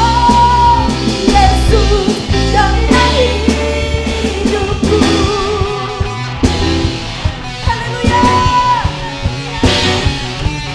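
Live worship band playing a rock-style praise song: a woman singing with electric guitar, bass, keyboard and drums.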